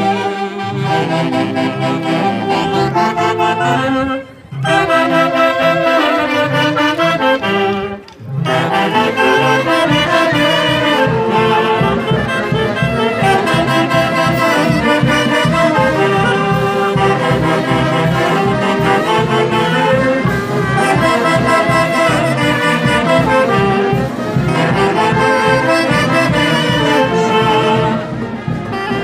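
Andean festival band music, wind instruments playing the melody over a steady beat. The music breaks off briefly twice in the first eight seconds.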